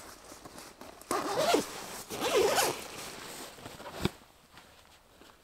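Sleeping bag zipper pulled open in two long rasping strokes, about a second apart, followed by a single sharp click about four seconds in.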